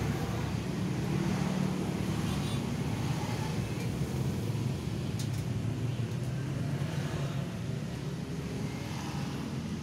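A steady low mechanical hum with background noise.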